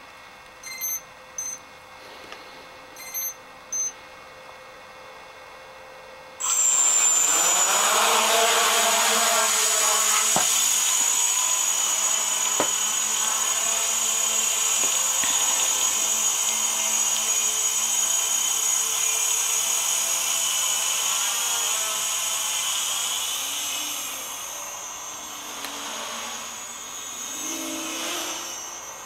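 A few short beeps, then about six seconds in a homemade quadcopter's four electric motors and propellers start suddenly and spool up, rising in pitch, into a steady high whine with a rush of air as it takes off and flies. The sound grows fainter near the end as it climbs away.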